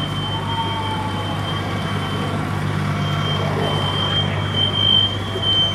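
A large vehicle's engine idles with a steady low hum, most likely the attending fire truck. Over it, the house's smoke detectors sound a repeated high-pitched beep, clearest in the second half.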